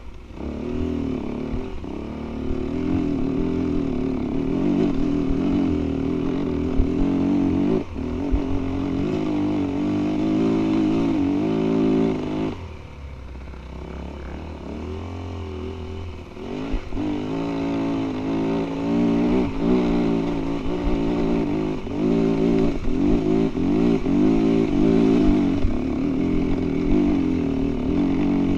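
2017 Yamaha WR250F's single-cylinder four-stroke engine running under the rider, its revs rising and falling with the throttle as the dirt bike rides a rough trail. About halfway through it drops back and runs quieter for a few seconds, then revs up and pulls again.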